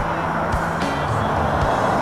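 Band music soundtrack with held bass notes and a steady beat of about two thumps a second.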